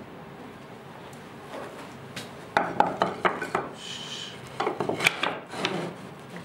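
Planed hardwood strips knocking and clattering against each other and on a plywood workbench as they are set down and pushed together side by side. The knocks come in two clusters about two seconds apart, with a brief high squeak between them.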